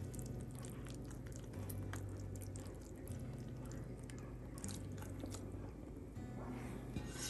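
Soft background music with a steady low bass line, over faint crackling and soft clicks as scrambled egg and enoki mushroom is slid off a pan onto a ceramic plate with a spatula.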